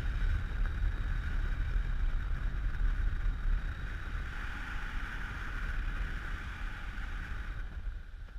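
Wind buffeting the microphone in a heavy, fluttering low rumble, over a steady rushing hiss that thins out near the end.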